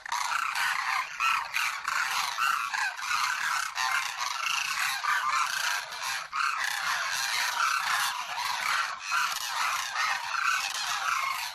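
A flock of cranes calling together, many short calls overlapping into a continuous chorus.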